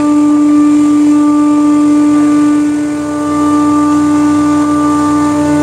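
Steady drone of running machinery: one constant tone with overtones that does not change in pitch, dipping briefly in loudness about three seconds in.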